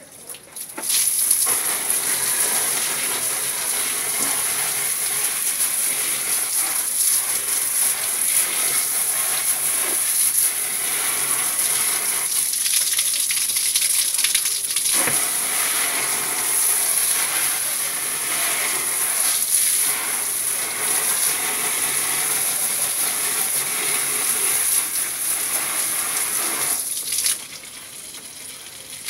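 Garden hose spraying water onto a split air conditioner's plastic mesh filter screen, rinsing off the detergent and dust: a steady rush of spray that starts about a second in and stops about two seconds before the end.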